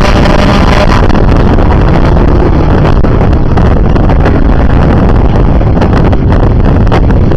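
Racing cars' engines running loud as a pack of several cars comes past on a tyre warm-up lap, a dense mix of engines with no single car standing out. Wind buffets the microphone.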